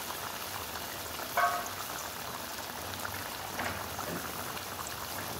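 Mustard fish curry gravy bubbling at a steady boil in a pan, an even popping and crackling. One brief, louder clink about one and a half seconds in.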